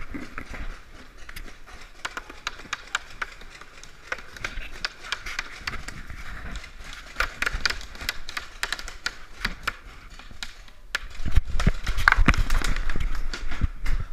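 Paintball markers firing in a dense, irregular patter of sharp pops from many guns at once. About eleven seconds in, a louder low rumble joins the shots.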